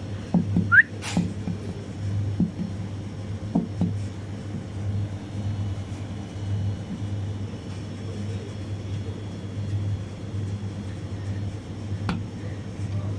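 Steady low hum of a drinks display fridge running, with a few light taps in the first few seconds, a short rising squeak about a second in, and a single click near the end.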